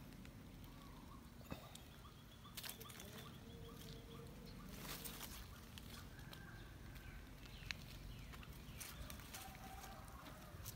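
Faint outdoor ambience: soft rustling and a few light scuffs and clicks as a kitten moves through low bushes and dry leaves, with a slightly louder rustle about five seconds in. A few short, faint chirps sound in the background.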